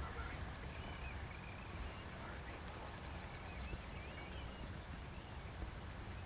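Quiet open-air ambience: a steady low rumble under a few faint, wavering chirping calls about a second and two and a half seconds in.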